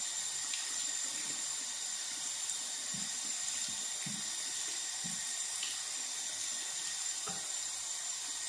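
Tap running steadily into a bathroom sink, with short splashes now and then as the face is rinsed with water cupped in the hands.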